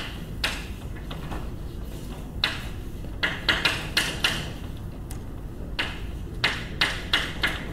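Chalk writing on a blackboard: a run of short, sharp taps and scratches, bunched in the middle and again near the end, over a low steady room hum.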